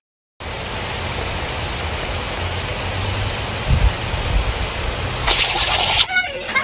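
Pop-up lawn sprinkler head spraying a jet of water, a steady hiss that starts about half a second in and grows louder near the end.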